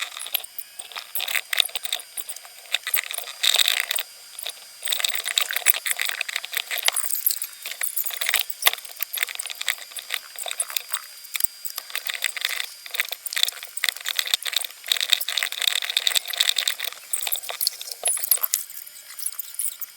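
Computer keyboard typing: a rapid, uneven clatter of key clicks with short pauses.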